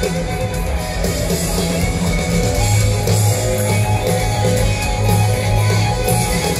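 Live rock band playing a loud, guitar-led passage, with electric guitars over bass and drums, recorded from within a concert crowd.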